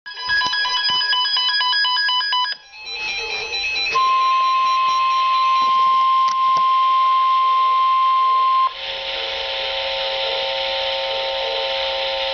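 A string of electronic beeps at several pitches, then a single steady alert tone near 1 kHz held for about five seconds, then hiss with several lower steady tones. The steady tone is the NOAA Weather Radio warning alarm tone, the signal that a warning message is about to be broadcast.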